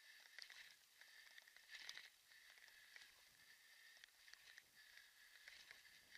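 Faint, irregular crackling and clicking of a kick scooter rolling over a muddy dirt track.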